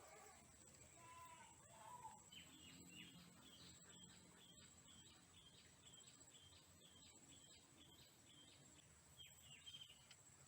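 Faint bird calling: a run of short high notes repeated about twice a second, over quiet outdoor background.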